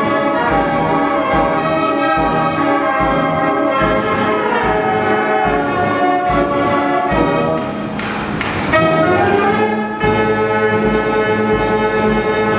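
Wurlitzer 165 band organ playing a paper music roll: brass-toned pipes carry the melody over a steady drum beat, with a short crash about eight seconds in.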